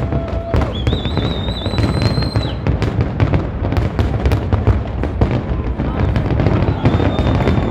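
Fireworks display: dense, rapid crackling of many small bursts over a steady low rumble. A high, wavering whistle starts about a second in and lasts more than a second.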